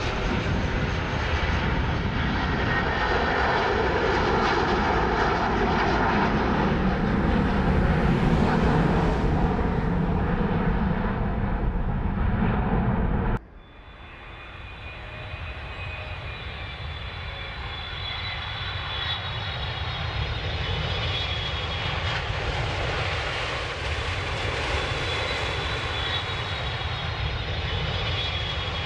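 Aircraft engines at takeoff power, a loud continuous roar that swells, then cuts off abruptly about halfway through. The sound picks up again more quietly as another aircraft's engines rumble with a high whining tone, slowly growing louder.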